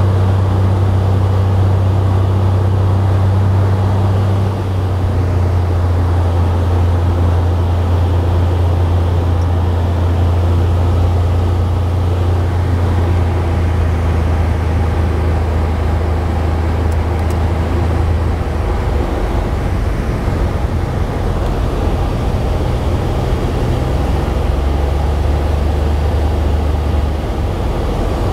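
Cessna 182's engine and propeller droning steadily, heard inside the cockpit on a landing approach; the engine note steps down slightly about four and a half seconds in. From about eighteen seconds the steady drone gives way to a rougher rumble as the plane rolls out on a grass airstrip.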